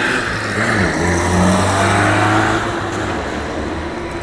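City traffic at a stop: a car driving past close by while a trolleybus pulls in to the kerb, with tyre noise and a steady motor hum. The noise swells about a second in and eases off later.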